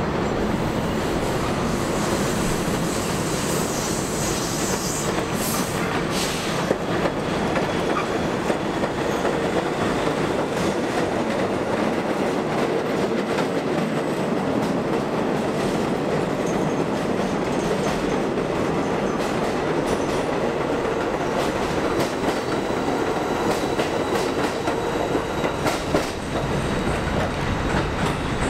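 NYC Subway garbage work train, silver subway cars hauling refuse flat cars, rolling past on an elevated line: a steady rumble of steel wheels with clickety-clack over the rail joints and faint high wheel squeal.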